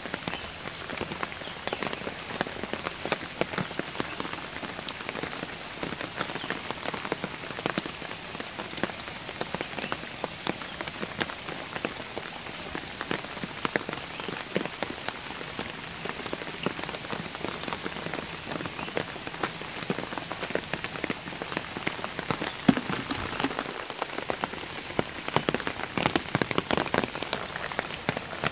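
Steady rain falling on shallow puddles and wet ground: an even hiss made up of many separate drop ticks.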